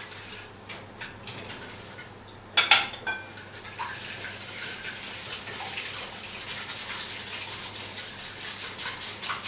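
Hand whisk beating eggs and sugar in a glass bowl: a fast, steady scraping clatter against the glass. It begins after a few light clicks and a louder knock on the bowl about two and a half seconds in.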